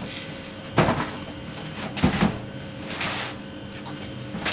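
Handling noises as an RC buggy is moved aside and a boxed RC crawler brought out: a knock about a second in, a double knock about two seconds in, then a short scraping slide.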